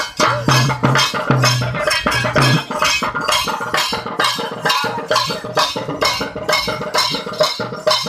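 Double-headed drum beaten in a steady, fast rhythm of about four strokes a second for a kavadi dance, with short held notes from a pitched instrument over it in the first couple of seconds.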